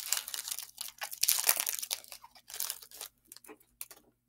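Foil wrapper of a freshly opened Pokémon TCG booster pack crinkling and crackling as it is handled, dense for about three seconds, then a few light rustles before it goes quiet.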